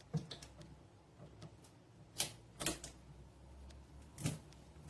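Scattered clicks and light knocks from handling the parts of a mini countertop dishwasher as it is unpacked, with three sharper knocks in the second half.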